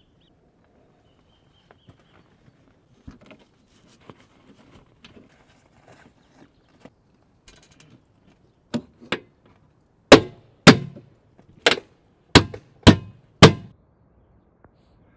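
A series of sharp knocks: two lighter ones, then six loud strikes roughly half a second to a second apart, each with a short ring after it.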